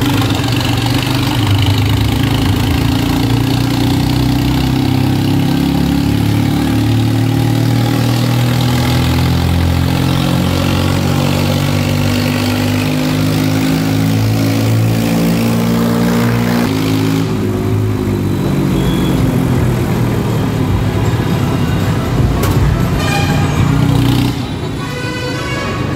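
Tractor's diesel engine running while driving slowly, its pitch sinking as it eases off, then picking up again about seventeen seconds in.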